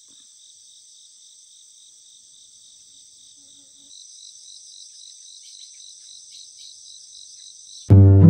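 A chorus of crickets chirring steadily with a fast, high-pitched pulse, faint, slightly louder after about four seconds. Near the end piano music starts abruptly and much louder.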